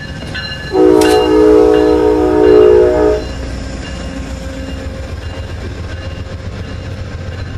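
Amtrak GE P42DC diesel locomotive passing at close range, sounding its multi-note air horn chord in one blast of about two and a half seconds, starting about a second in. Under it runs the steady low rumble of the engine and wheels on the rails.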